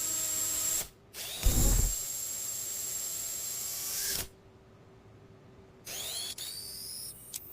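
Electric motor whirring like a power drill, in two long runs with a short break and a thud between them, then a shorter burst with rising whines near the end.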